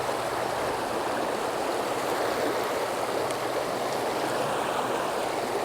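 A small river's water running steadily over rocks, an even rushing.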